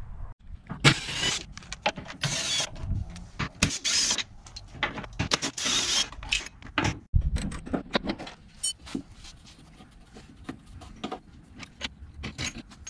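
Cordless impact wrench rattling in about five short bursts over the first six seconds, loosening the upper control arm and coilover bolts on a C5 Corvette's front suspension. After that come scattered metal clicks and clinks as the loosened parts and tools are handled.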